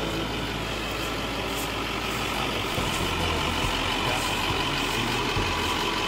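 School bus engine idling steadily.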